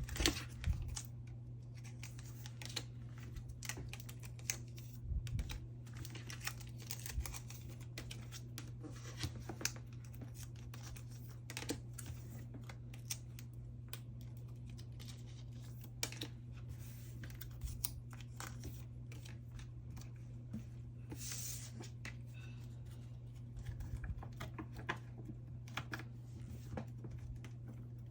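Photocards being slid out of plastic sleeves: scattered light clicks, taps and plastic rustles at an irregular pace over a steady low hum.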